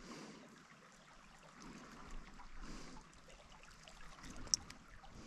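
Faint trickle of shallow creek water, rising and falling softly, with a few small clicks near the end.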